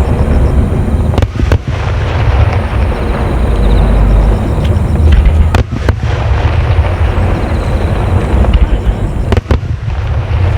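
A dense barrage of aerial fireworks shells bursting. Deep booms run together into a continuous rumble, with sharp cracks standing out at several points.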